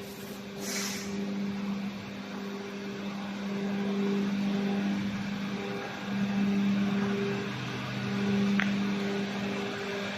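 Factory machinery humming with a steady low drone that swells and eases every couple of seconds. There is a short hiss about half a second in and a brief faint chirp near the end.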